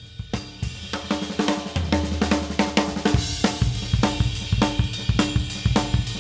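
Spinelli acoustic drum kit (22" x 15" bass drum, 14" x 5.5" snare, 10" and 12" toms, 16" x 14" floor tom) played with sticks: a busy groove of snare, toms, kick and cymbals, with several strikes a second. A deep drum boom rings out about two seconds in.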